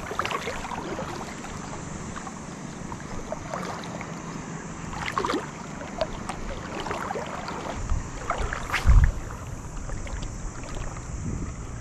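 Water lapping and wind on the microphone, with scattered small knocks and one louder low thump about nine seconds in.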